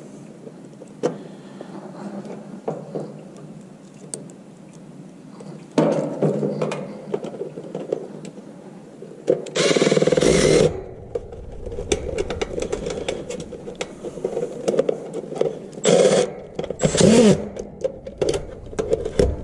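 Milwaukee M12 Fuel cordless driver running in short spurts to drive in a screw: one burst of about a second around the middle, then two shorter ones near the end, among light clicks and handling of small parts.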